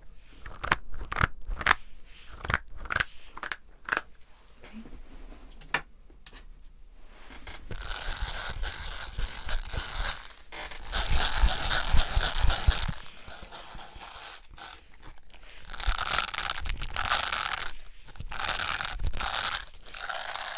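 Hearing-test trigger sounds made by hand close to the microphone. First comes a run of sharp clicks, two or three a second, for about four seconds. Then three long stretches of dry crinkling rustle follow, with pauses between them.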